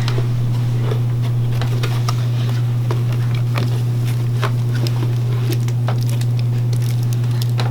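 A steady low hum with scattered light crackles and clicks over it, typical of gift wrapping being torn and handled.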